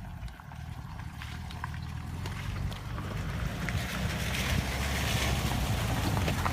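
VW bus engine running under way, growing steadily louder, with a hiss building over the second half.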